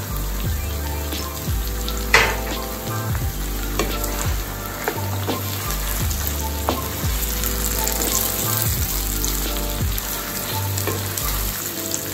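Saltfish and chopped chocho with tomatoes and peppers sizzling in a frying pan while a wooden spatula stirs them, knocking and scraping against the pan; one sharp knock about two seconds in.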